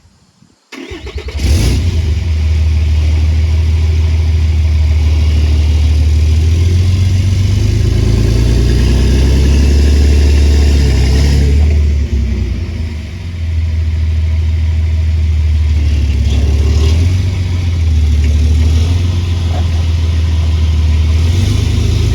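A vehicle engine starts about a second in and runs hard at high revs, pulling on a strap to drag out a storm-broken elm tree. It eases off briefly about halfway through, then pulls again.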